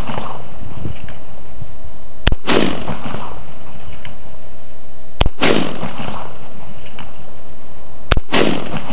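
DPMS AR-15 rifle in .223/5.56 firing three single shots about three seconds apart, each crack followed by a trailing echo.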